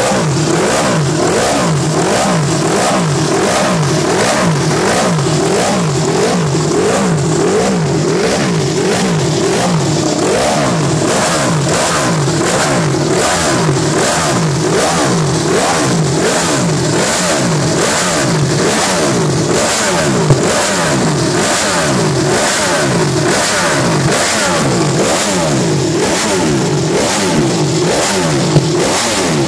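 Ducati Desmosedici MotoGP racing V4 engine being revved over and over, its pitch rising and falling in quick throttle blips a little more than once a second, without a pause. A few sharp cracks stand out about two-thirds of the way through and near the end.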